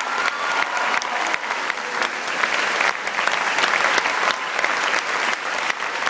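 A large audience applauding: dense, continuous clapping at a steady level.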